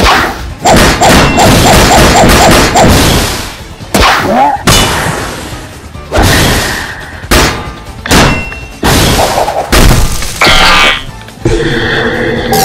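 Added cartoon fight sound effects over background music: a rapid run of about eight hits in the first three seconds, then a string of loud booms and impacts. Near the end, sustained music notes take over.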